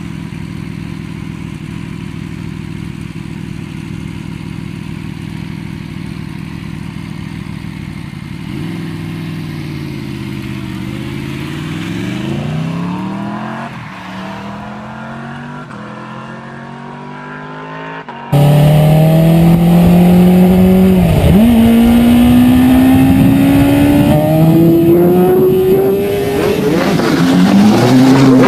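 A sport motorcycle held at steady high revs during a burnout. Then vehicles pass on a road, the engine pitch falling and then rising as a motorcycle comes on. After a sudden cut about 18 seconds in, a much louder car engine is revved hard, its note climbing steadily.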